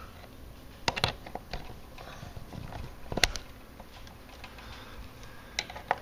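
A few sharp metal clicks and taps as snap-ring pliers fit a retaining clip back onto the shaft of a new plastic drive gear in a garage door opener. The loudest click comes about three seconds in.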